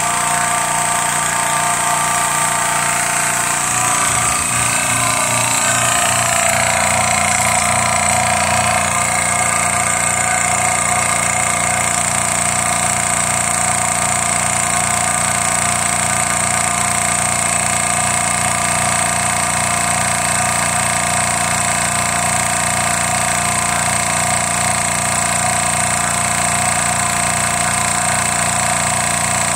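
Hill EC-3000 electric high-pressure PCP compressor running steadily with a fast, even pulse, partway through filling an airgun's air tank toward 250 bar.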